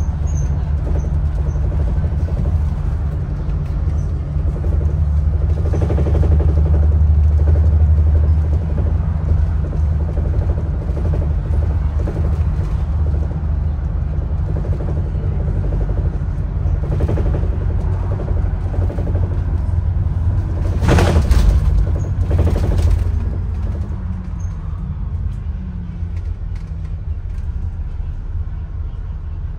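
Bus in motion heard from inside the passenger cabin: a steady low engine and road rumble, with a short, loud burst of noise about two-thirds of the way through.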